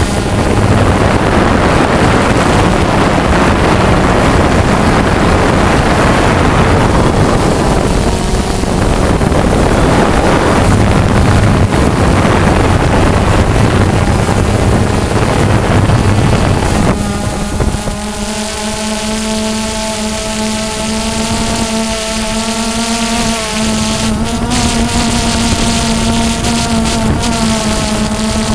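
Quadcopter's electric motors and propellers buzzing steadily, with wind rushing over the microphone. About seventeen seconds in, the rushing drops away and the motors come through as a clear, steady whine of several tones.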